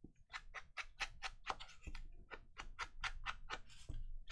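Quick, even dabbing taps on paper, about five a second: an ink pad or blending tool being pounced around the edges of a journal page.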